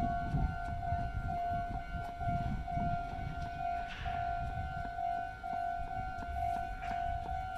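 Japanese railway level crossing's electronic warning bell ringing in rapid, evenly repeated tones ("kan-kan"). A low rumble runs underneath and is strongest at the start.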